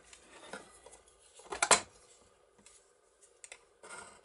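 Steel scriber scratching along a piece of sheet metal, marking out a curved outline, with light clicks of the point and the plate. One louder, short scrape comes about one and a half seconds in.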